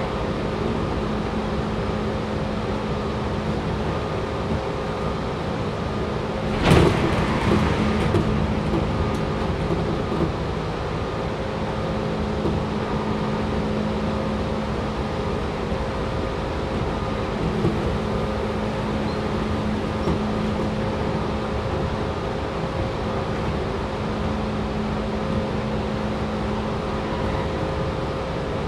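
Tobu 6050 series electric train running at steady speed, heard inside the motor car: rumble of wheels on rail under a steady whine from the TM-63B traction motors and gears. About seven seconds in a sudden loud rush cuts in and dies away over a second or so.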